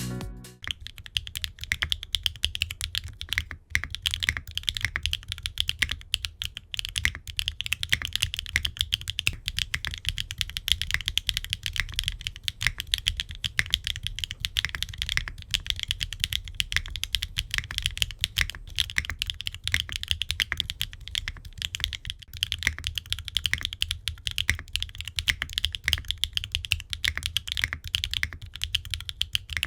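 Fast, continuous typing on a mechanical keyboard with HMX Cthulhu linear switches in a gasket-mounted aluminium case with an aluminium plate, no foam and ABS double-shot keycaps. Many keystrokes a second, each a sharp click over a deep low bottom-out.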